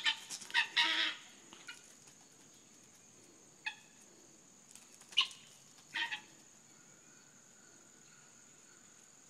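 Guinea fowl calling: a quick run of harsh calls in the first second, then three single harsh calls spread over the next few seconds.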